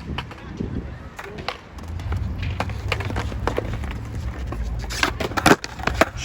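Skateboard wheels rolling over wet ground with a low rumble, then a quick run of sharp board clacks and impacts from a trick attempt near the end.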